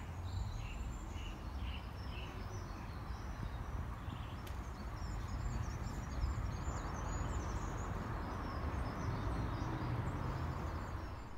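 Outdoor ambience: a steady low rumble with birds chirping.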